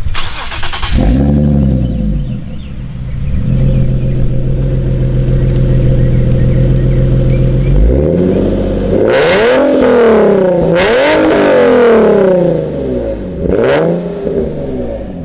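Nissan 370Z Nismo's 3.7-litre V6 heard at its dual exhaust tips: a rev about a second in, a steady idle, then several quick throttle blips in a row in the last half.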